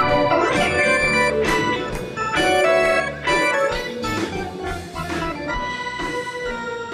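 Instrumental music played on an organ-toned keyboard, with held chords, slowly getting quieter toward the end.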